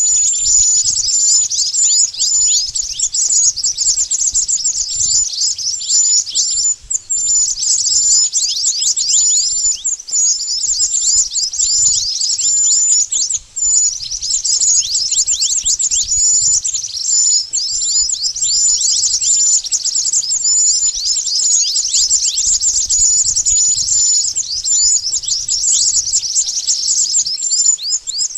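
Recorded calls of the bird known in Indonesia as mantenan, played as a bird lure: a dense, continuous stream of rapid high chirps, each a quick downward sweep, several a second, broken by a few short pauses.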